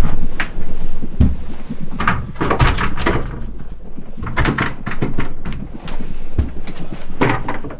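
An old panelled wooden door being handled: irregular knocks and bumps.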